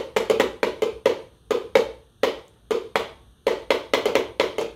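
Red plastic Solo cups tapped and knocked in a quick, repeating cup-game rhythm, about three to four sharp hits a second.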